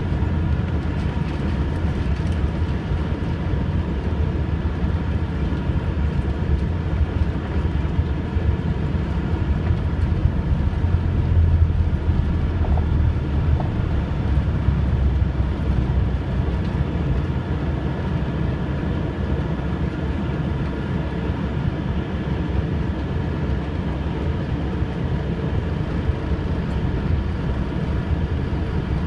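Embraer EMB-120 Brasilia's twin turboprop engines and propellers droning steadily while the aircraft taxis, heard from inside the cabin: a deep hum with a few steady held tones above it, swelling briefly about eleven seconds in.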